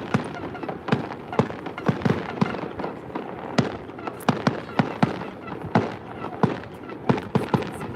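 Fireworks going off: a rapid, irregular run of sharp bangs and cracks, several a second.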